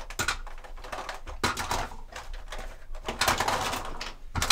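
Toiletries being handled from a cloth toiletry bag: small plastic bottles and caps clicking and knocking, with rustling as things are moved about.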